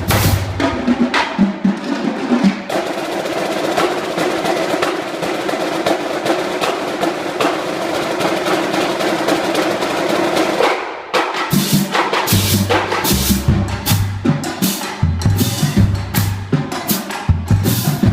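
Marching drum line playing a cadence of snare and tuned bass drum strokes. From about three seconds in it holds a sustained roll for several seconds. After a short break near eleven seconds the full line comes back in with rhythmic bass drum notes at different pitches.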